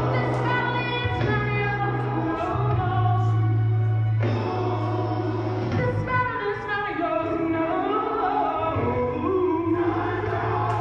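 A gospel song with singing over a deep held bass line, played back for a solo dance; no live musicians are playing.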